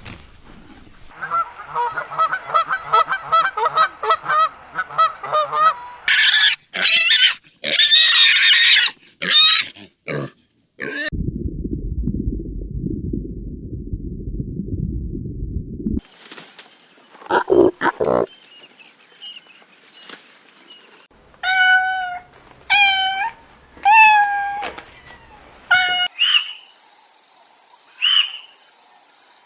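A series of different animal calls, one clip after another: a repeated pitched call, then high squeals, then a low rumbling stretch of several seconds, then short repeated calls near the end.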